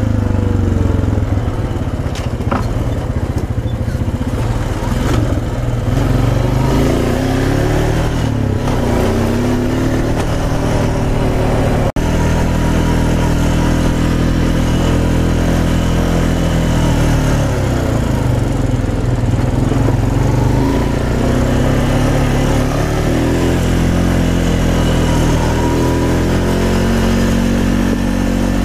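ATV engine running under way over dirt and grass tracks, its pitch rising and falling as the throttle opens and closes. There is a brief break in the sound about twelve seconds in.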